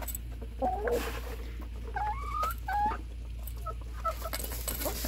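Hens clucking and making short calls while pecking feed from an enamel bowl, with scattered clicks of beaks on the bowl.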